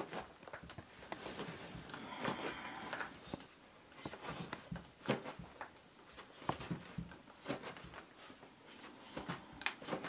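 A whittling knife cutting a notch into a wooden blank by hand: irregular short, sharp snicks and scrapes as small chips come off the wood, with a denser run of scraping about two seconds in.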